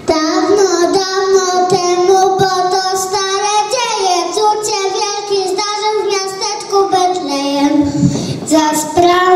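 Preschool children singing a song, the singing starting suddenly at the outset and carrying on with a brief dip near the end.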